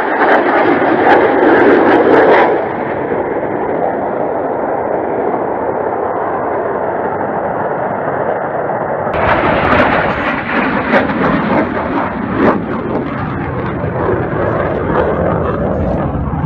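Jet roar of Blue Angels F/A-18 Hornets flying over in formation, loudest for the first two and a half seconds, then a steady, slightly softer roar. About nine seconds in the sound changes abruptly to a rougher outdoor rumble with a few sharp knocks.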